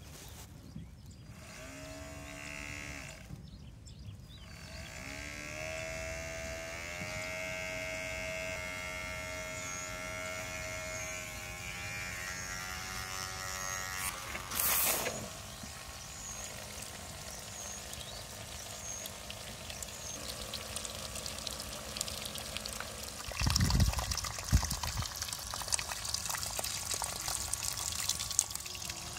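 Miniature toy water pump running and pumping: water gushes from its outlet and splashes onto mud, building up over the last third. Before that comes a faint whine that shifts in pitch, with one sharp click about halfway and a low thump just before the splashing swells.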